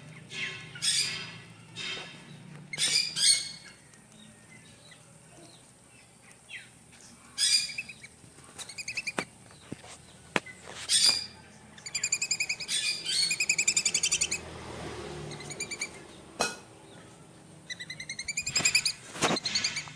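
A parrot calling in repeated harsh squawks and chirps, in scattered bursts with quiet gaps, including a long run of rapid screeching calls in the middle and a loud burst near the end.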